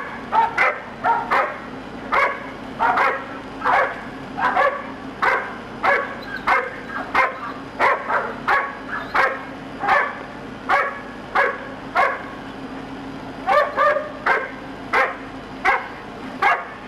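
A dog barking over and over in a steady rhythm, about one bark every three-quarters of a second, with a steady low hum underneath.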